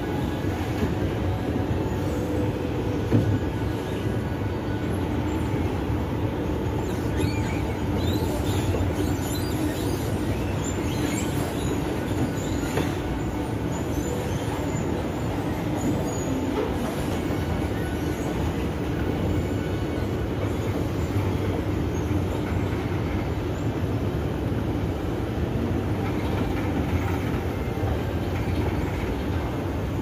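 Steady low rumble of shopping-mall ambience, with faint scattered clatter between about seven and thirteen seconds in.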